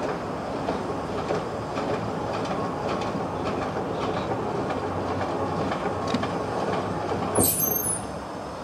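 NVR 40-ton steam crane working a lift, its machinery running with a steady clatter and a brief high squeal about seven seconds in.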